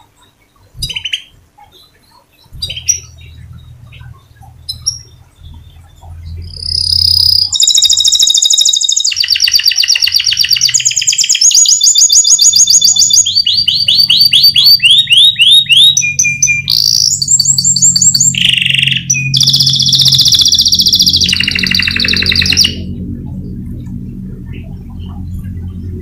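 Domestic canary singing: a few short chirps, then about seven seconds in a long rolling song of rapid trills, each tour a fast run of repeated notes at a new pitch, which breaks off abruptly near the end. A low steady hum runs underneath.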